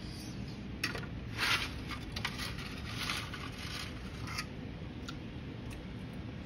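A metal fork clinking and scraping against a ceramic plate: a handful of short clicks and scrapes, busiest between about one and four and a half seconds in, over a steady low hum.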